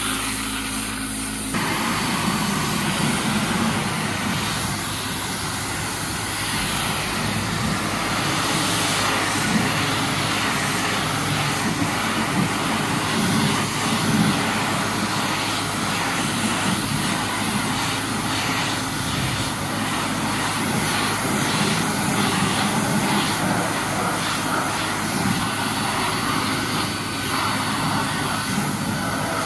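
High-pressure car-wash wand spraying water onto a pickup truck's body and wheels, rinsing off soap foam: a steady hissing rush that shifts in tone about a second and a half in.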